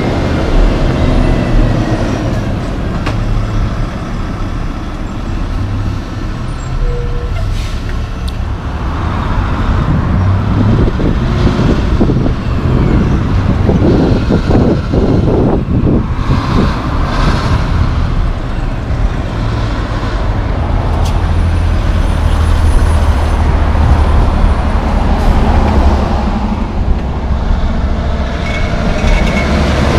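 Heavy diesel logging trucks and car traffic passing on a street, a steady engine and tyre rumble. Wind buffets the microphone for several seconds in the middle.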